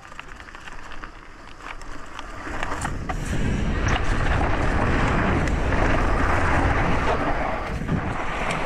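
YT Tues downhill mountain bike rolling fast down a steep dirt in-run, its tyres on loose dirt and rock with scattered clicks and rattles. Wind on the helmet camera's microphone builds from about two seconds in as speed picks up, and stays loud until near the end.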